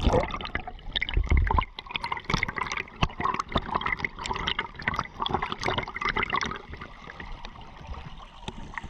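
Water gurgling and trickling, with many small irregular pops and clicks.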